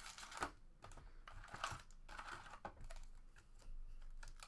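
Wrapped trading-card packs being pulled out of a cardboard hobby box and set down in stacks on a table: faint, irregular taps and light rustles.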